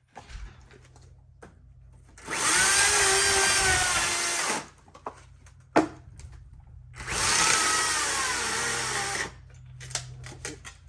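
Small handheld power saw run in two bursts of about two seconds each, cutting wood, its motor pitch wavering under load. A sharp knock falls between the cuts, with a low steady hum underneath.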